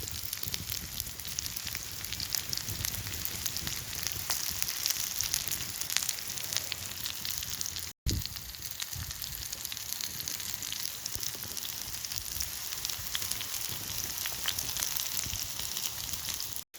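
Pork frikadellen, potatoes and peppers frying in oil in a wrought iron skillet over a campfire: a steady crackling sizzle, broken by a brief gap about eight seconds in.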